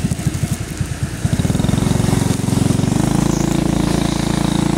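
Motorcycle engine running close to the microphone, its firing pulses uneven and dipping in loudness for about the first second, then picking up into a steady run.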